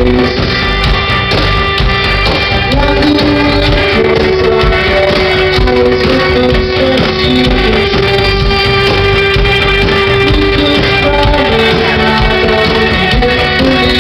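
Rock band playing live, loud and steady, with a long held note under a stepping melody.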